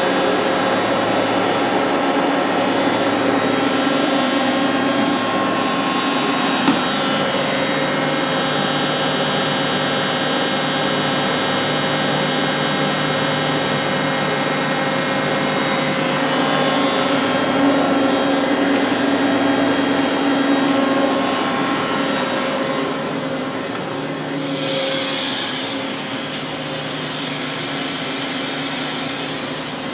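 Doosan V550 CNC vertical turning lathe running: a steady machine hum and whine made of many fixed tones. A single click comes about seven seconds in, and near the end a high hiss joins as the hum eases slightly.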